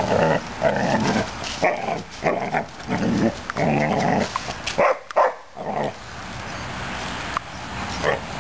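Newfoundland puppy play-growling and barking at a push broom in a run of short bursts about every half second, going quieter for the last couple of seconds.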